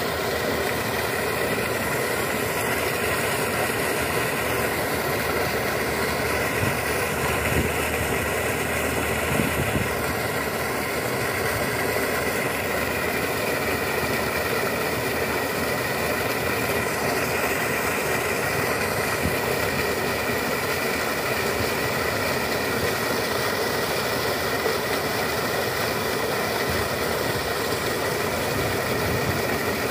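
Sand slurry gushing steadily from a sand-pumping discharge pipe and splashing into a flooded plot, with a steady hum running underneath.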